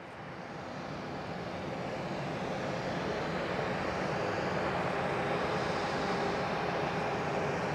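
Boeing 747-400's four General Electric CF6-80C2 jet engines running with a steady roar and a faint whine as the airliner rolls out on the runway after touchdown. The sound rises over the first couple of seconds.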